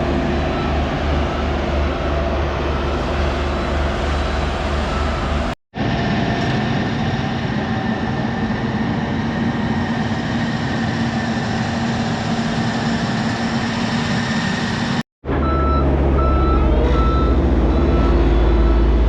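Heavy road-construction machinery running, its diesel engine steady, with a vehicle's reversing alarm beeping repeatedly in the first and last parts. The sound breaks off twice for an instant.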